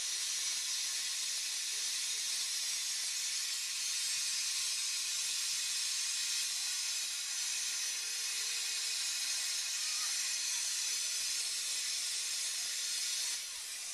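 Steady hiss of steam escaping from an LMS Stanier Class 5 4-6-0 steam locomotive, No. 45231, at an even level throughout.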